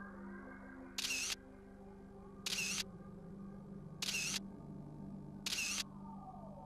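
Camera shutter sound effect, four short snaps spaced about a second and a half apart, over soft sustained background music.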